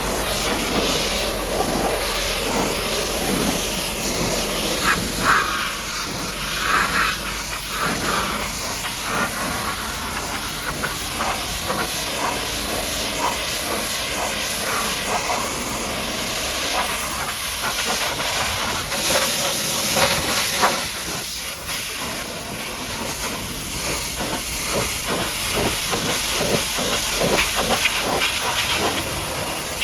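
High-pressure water jet from a pressure washer spraying a muddy truck: a steady loud hiss of spray that swells and changes as the jet moves over the surfaces.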